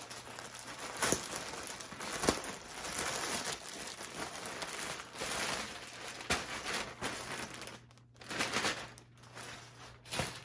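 Plastic mailer bag crinkling and rustling as it is opened and a plastic-wrapped blanket is pulled out, with a few sharp crackles along the way.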